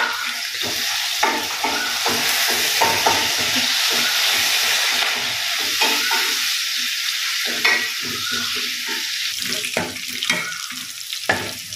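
Shallots sizzling in hot oil in a nonstick kadai, with a steady hiss, while a steel ladle stirs them, scraping and tapping against the pan again and again.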